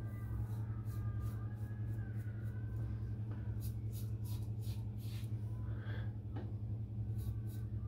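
Double-edge safety razor (Karve, all-aluminium) scraping through four or five days of scalp stubble under thick lather: runs of short, scratchy strokes about three a second, densest in the middle and near the end, over a steady low hum.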